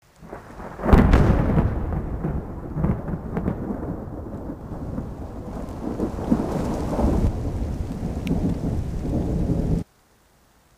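Thunder rumbling with rain, swelling about a second in and rolling on in surges before cutting off suddenly near the end.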